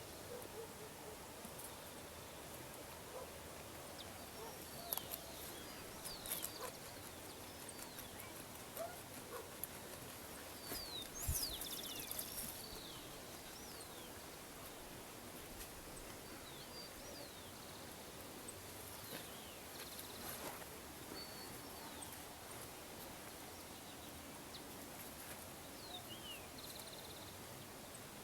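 Birds chirping now and then, short scattered calls over a steady outdoor hiss of countryside ambience, with a few brief clicks and a louder rustling burst near the middle.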